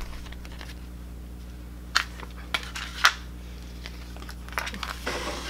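Handling noise from a cut iron-on vinyl piece on its clear plastic carrier sheet being picked up and positioned on a wood board: a few sharp clicks about two and three seconds in and a brief rustle near the end, over a steady low hum.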